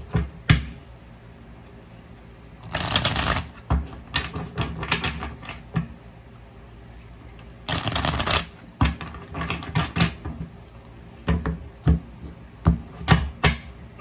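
A deck of oracle cards being riffle-shuffled by hand. There are two quick riffles about five seconds apart, each lasting about half a second. Between and after them come separate taps and knocks as the deck is squared on a wooden table.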